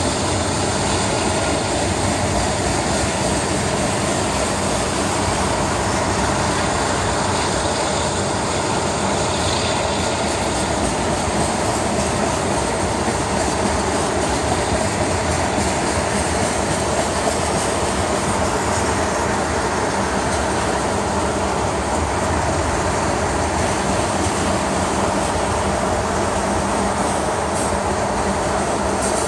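Union Pacific freight train's tank cars rolling past: a steady, continuous rumble of steel wheels on the rails.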